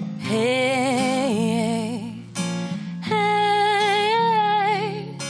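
A woman singing "hey" in two long, wavering held notes over her own acoustic guitar, with a strummed chord before each note.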